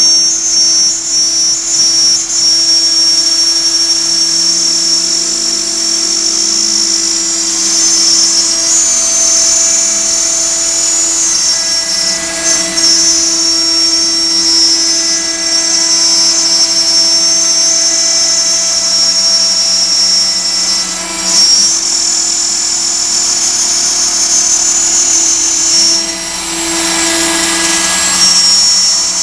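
CNC router spindle running at high speed while cutting out a kiteboard: a loud, steady high-pitched whine over a lower hum, with brief dips in level twice in the later part.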